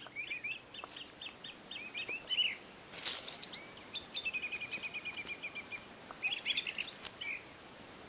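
Small songbirds singing: a string of quick high chirps and slurred notes, then a rapid trill of evenly repeated notes a few seconds in, followed by more chirping.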